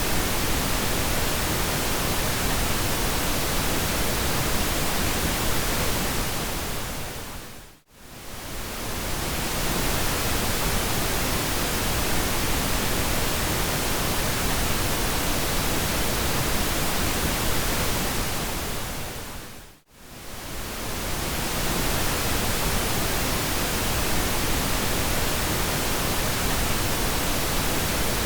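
Steady synthesized pink noise, an even hiss across all pitches. It fades down to near silence and swells back up twice, about 8 seconds in and again about 20 seconds in.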